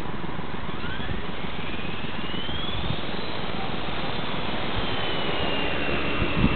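450-size radio-controlled helicopter spooling up: a whine rising steeply in pitch as the rotor head speeds up, easing into a steady high tone, over a constant rushing noise.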